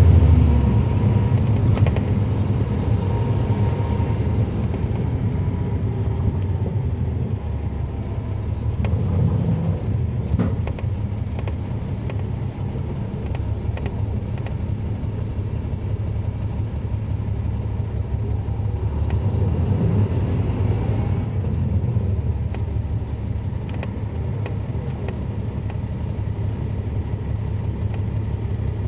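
Caterpillar C13 ACERT diesel engine of a NABI 40-foot transit bus, heard from the rear seats with its engine cooling fans on. The engine note drops from a louder pull in the first second, then settles into a steady low drone.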